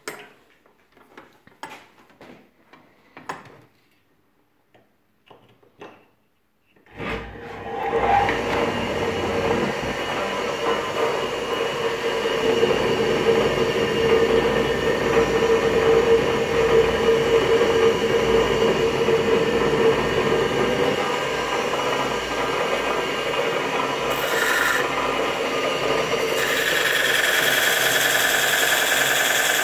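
Homemade lathe's belt-driven spindle, powered by a 1.1 kW single-phase electric motor, switched on about seven seconds in and running steadily. Near the end a wooden block is pressed against the spinning faceplate as a load test, adding a high rubbing squeal over the running motor.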